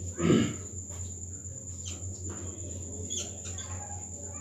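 Steady high-pitched whine over a low hum, with a few short high chirps later on. A brief voice sound comes near the start.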